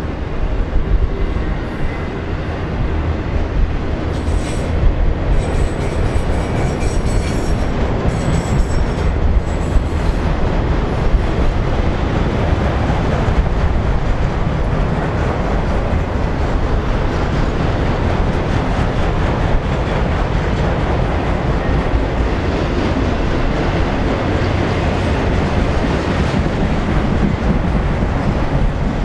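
Freight train of autorack cars rolling steadily past: continuous rumble and clatter of steel wheels on rail, with a few brief high-pitched wheel squeals between about four and ten seconds in.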